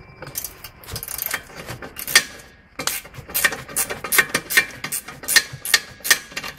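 Ratchet spanner clicking as a bolt by the track rod end is undone: a run of sharp, irregular metallic clicks, two or three a second, starting about two seconds in.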